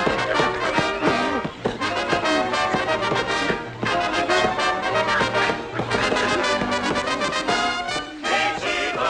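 Orchestral cartoon score with brass to the fore, playing continuously.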